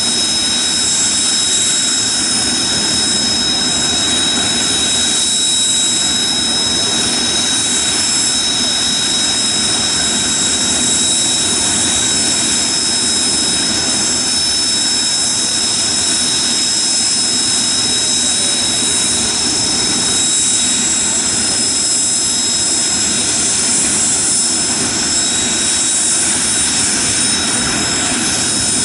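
Kawasaki T-4 jet trainers' twin turbofan engines running at ground idle, a steady loud rush with several high-pitched whining tones held throughout.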